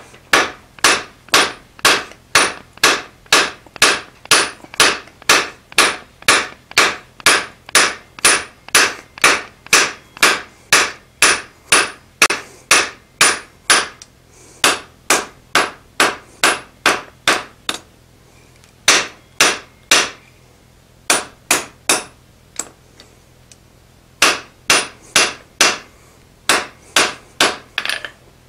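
Hand hammer striking red-hot mild steel on an anvil, about two blows a second, drawing a square bar out flat. Each blow has a light ring. The blows come in runs with short pauses, the longest about 22 to 24 seconds in.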